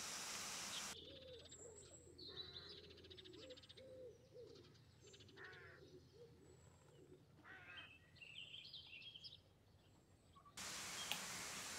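Faint wild birdsong: high chirps and a fast trill over a run of low, wavering calls repeated many times. A steady outdoor hiss stops abruptly about a second in and cuts back in abruptly near the end.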